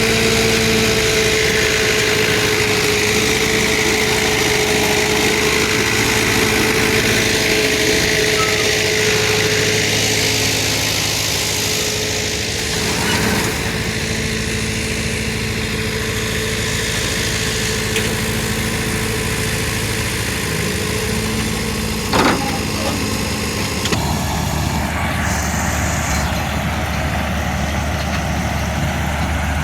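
Farm tractor engine running steadily, with one sharp knock about two-thirds of the way through.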